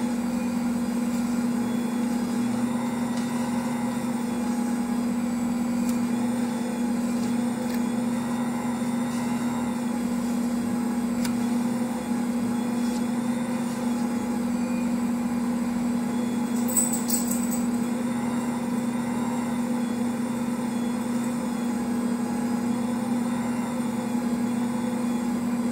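Ankarsrum stand mixer running steadily, its motor turning the bowl while the dough hook kneads bread dough: an even hum at a constant pitch. A brief high-pitched click about seventeen seconds in.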